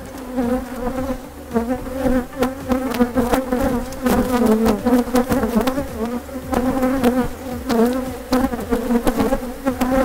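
Agitated honeybees buzzing close to the microphone: a steady hum that wavers a little in pitch, from an upset colony with bees crowding the beekeeper's veil. Scattered light clicks and knocks sound through it.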